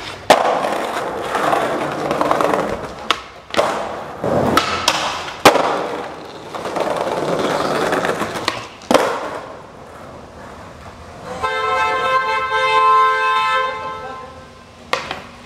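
Skateboard wheels rolling on concrete, broken by sharp clacks of pops and landings. Then a car horn sounds, held for about three seconds.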